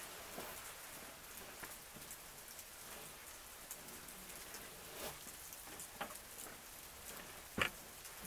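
Wintry precipitation pattering softly: a faint, steady hiss with scattered small ticks of drops or pellets landing, and one sharper tick near the end.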